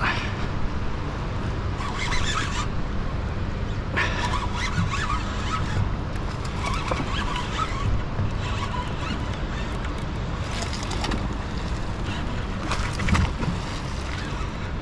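Wind rumbling on the microphone over open water, with irregular hissy washes that come and go every few seconds.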